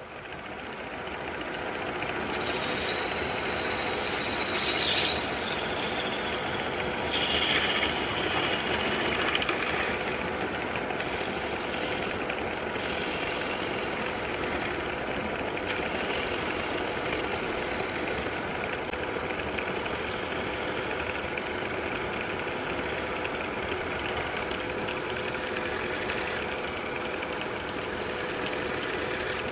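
Wood lathe motor spinning up to speed at the start, then running with a steady hum. A turning tool cuts into the spinning goblet stem in passes: a hissing scrape that comes and goes with short breaks.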